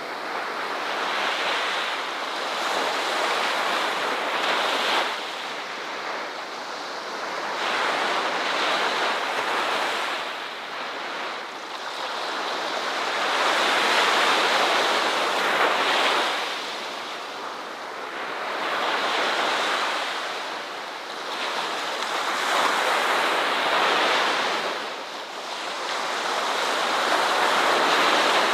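Ocean surf washing onto a shore: a steady rush of water that swells and falls back every four to five seconds.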